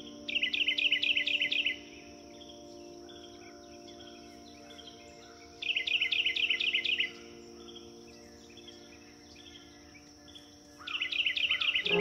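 A high, rapid chirping trill of about six chirps a second, heard three times for about a second and a half each, roughly five seconds apart, over soft ambient music of held tones.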